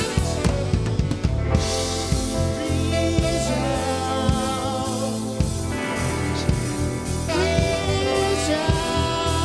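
Live rock band playing a mid-tempo song, with a steady drum-kit beat and bass under wavering sung or melodic lines.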